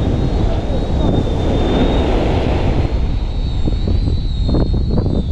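Wind rumbling on the microphone over beach surf, with a thin, steady high-pitched whine through most of it and a few light handling knocks near the end.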